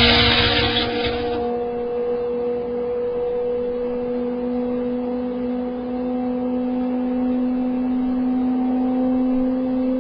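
Europrop TP400-D6 turboprop engine and propeller running on a test run: a steady droning hum whose pitch creeps slowly upward. A louder rushing noise at the start fades out after about a second and a half.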